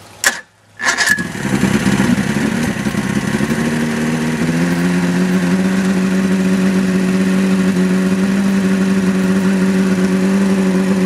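1973 Johnson 85 hp two-stroke outboard engine, primed with starter fluid, catching about a second in after two sharp clicks. It runs unevenly for a few seconds, then settles into a steady idle on a garden-hose flushing muff.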